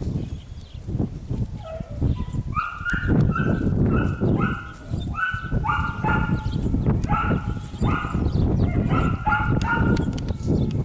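Border collie pup yipping in a quick string of short, high-pitched barks, about two a second, starting about a second and a half in, over a steady low rumble.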